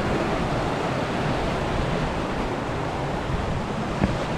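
Fell river rushing over rocks in small rapids and white water: a steady, even roar of flowing water.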